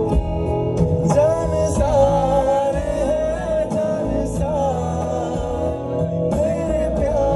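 Music: a song with a wavering sung melody over instrumental backing and a steady bass line.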